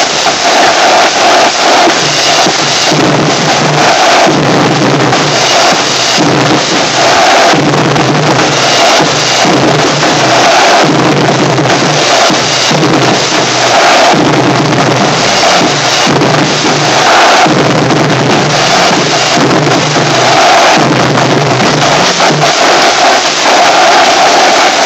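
Drumline playing marching snare drums, a continuous rapid drum cadence with no pause, recorded very loud.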